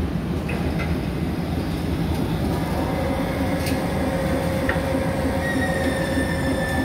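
Steady low rumble of a ferry's engine and hull running while berthed at the pier. A faint high whine comes in about two thirds of the way through and slowly falls in pitch.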